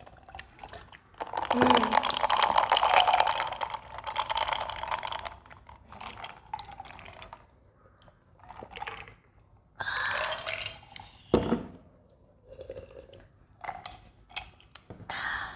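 Fizzy lime soda poured from a can into a glass jar of ice, fizzing and crackling for about four seconds. It is followed by quieter scattered handling sounds and one sharp knock about halfway through.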